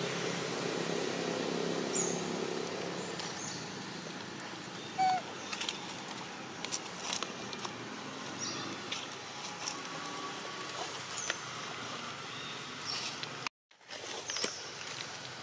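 Outdoor ambience: a steady low hum and background noise, with scattered light clicks and rustles and a few brief high chirps. The sound cuts out for a moment near the end.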